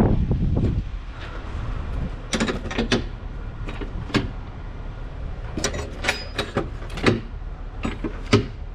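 Metal clicks and clanks of a semi-trailer's rear-door lock rod handles being grabbed and worked with a gloved hand: about a dozen sharp knocks scattered through, a few with a brief metallic ring. A loud low rumble fills the first second, and a low steady hum runs underneath.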